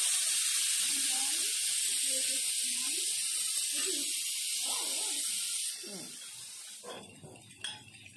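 A steady high hiss that cuts off about six seconds in, followed near the end by a metal spoon clinking against a steel mixing bowl as beaten eggs and melted butter are stirred.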